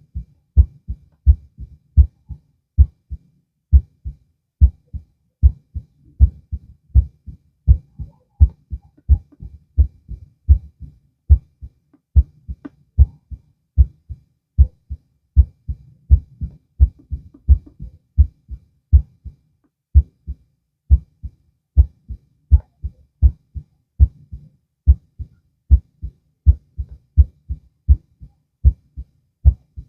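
Human heartbeat heard through a stethoscope: a steady, regular rhythm of paired low thumps, the 'lub-dub' of each beat.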